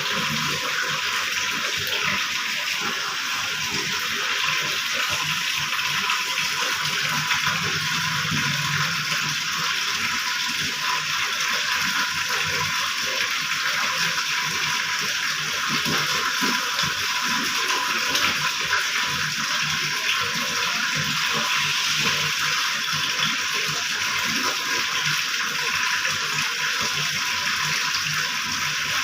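Water flowing steadily from a plumbing outlet: an even, constant rush of running water.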